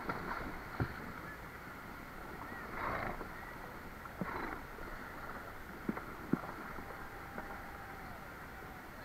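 Horses wading across a river over a steady rush of water, with two brief splashes about three and four seconds in and a few sharp knocks of hooves.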